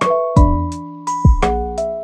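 Background music: keyboard notes over a steady beat of deep kick-drum thumps and light high ticks.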